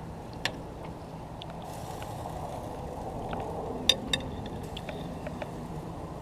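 Propane grill cooking chicken breasts: a steady low rush from the burner with a few sharp pops, the loudest pair about four seconds in.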